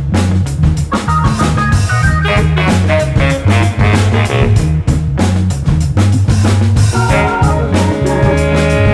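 Instrumental soul band music: a steady drum-kit beat over a prominent bass line, with guitar and held chords on top.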